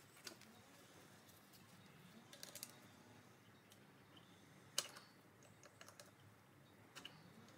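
Near silence broken by a few faint, scattered clicks and taps of hand tools against a tractor's rear brake and hub parts, with a small cluster of clicks midway and one sharper click about five seconds in.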